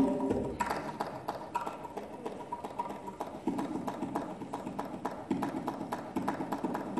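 Quick, light hand taps on the wooden body of a string instrument played as percussion, in an uneven rhythm, with a low note sounding briefly twice.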